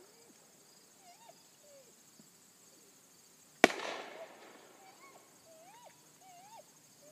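A single distant gunshot about three and a half seconds in, a sharp crack that fades out over about a second. It is the gun station's shot marking a bird thrown for the retriever's mark.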